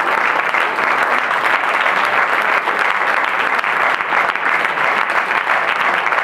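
Audience applauding: steady, dense hand-clapping from a room full of people.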